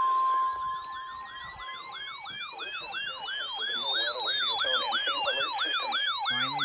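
A steady high alert tone that cuts off in the first second, then an electronic siren: rapid falling yelps about three a second over a slower wail that rises to a peak and falls again.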